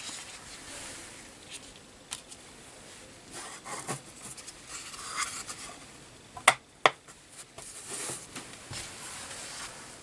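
Close handling noises: rubbing and scattered light clicks and taps, with two sharp clicks in quick succession about six and a half seconds in.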